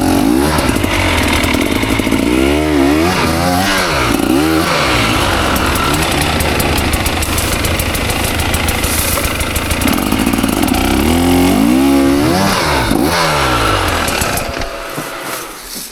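KTM 300 XC two-stroke dirt bike engine revving up and falling back again and again, the pitch swinging with the throttle. Near the end the engine drops away and goes quieter.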